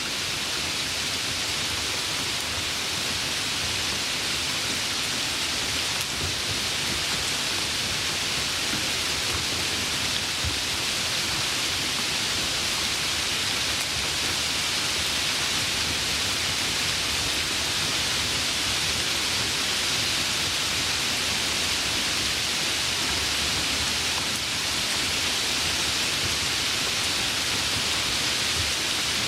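Light rain falling steadily, an even hiss of many small drops without breaks or thunder.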